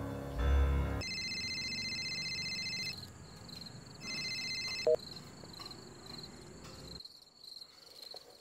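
Mobile phone ringing with a steady electronic ring tone: about two seconds of ringing, a short pause, then about one second more. A short click comes about five seconds in, and a faint high chirping pulses evenly underneath.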